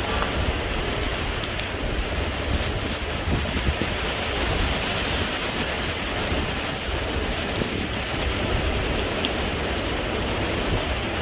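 Heavy rain falling in strong wind: a steady hiss of rain, with gusts rumbling on the microphone.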